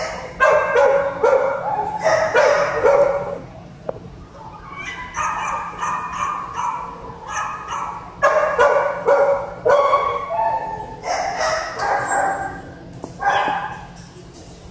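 Dogs barking and yipping in a shelter kennel block: quick runs of short barks in four bursts, with short lulls between.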